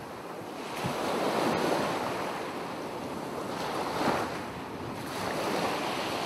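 Sea waves surging and washing in, an even rushing that swells and eases a few times, strongest about four seconds in.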